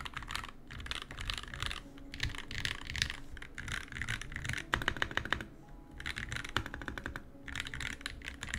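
Fast continuous typing on a NovelKeys NK65 Entry Edition 65% mechanical keyboard: a rapid, irregular run of keystroke clicks.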